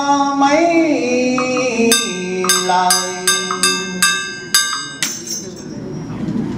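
A man chanting a Vietnamese Buddhist funeral liturgy in a sliding, sung voice, then holding a low note while a small metal percussion instrument rings out in about seven quick, evenly spaced strikes starting about two seconds in.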